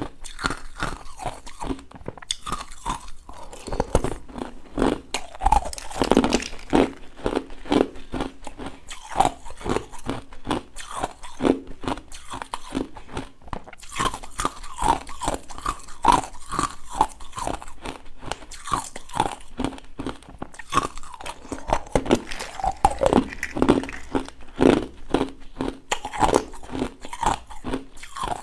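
Close-miked biting and chewing of hard frozen purple ice balls: a rapid run of crisp crunches, several a second, as the ice cracks between the teeth.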